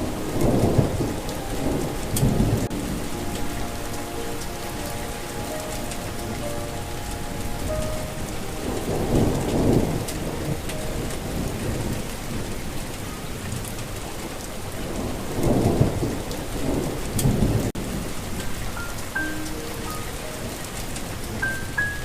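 Steady rain with rolls of thunder: one about a second in, another around nine to ten seconds, and a longer one around fifteen to seventeen seconds. Soft held melodic notes sound underneath.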